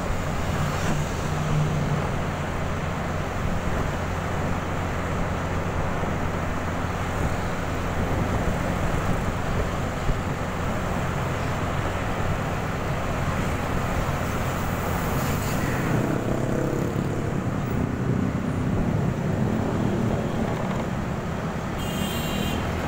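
Motorbike ride through jammed city traffic: a steady low engine hum under a constant wash of surrounding cars and motorbikes.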